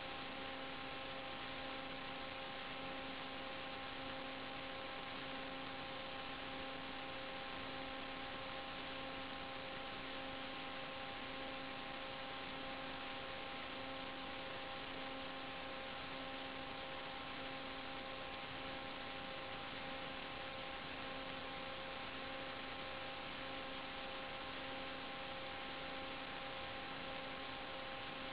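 Steady electrical hiss with a constant hum, made of several fixed tones, unchanged as the quadcopter powers up and flies off. This is noise on the recording's audio line, not the sound of the motors.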